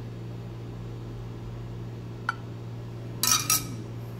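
Steady low hum with a single light click about halfway, then a brief clatter of a metal spoon clinking against cookware a little past three seconds in.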